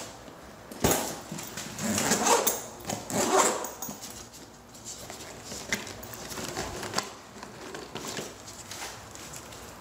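Rummaging through a zippered canvas tool bag: a sharp knock about a second in, then a few seconds of rustling and clattering tools, with quieter handling and small clicks after.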